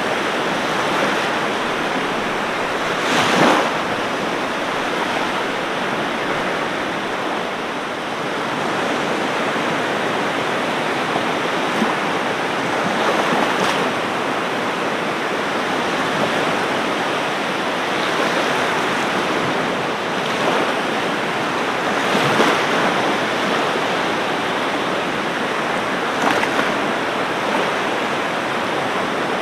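Ocean surf: a steady wash of breaking waves, with four brief louder crashes spread through it.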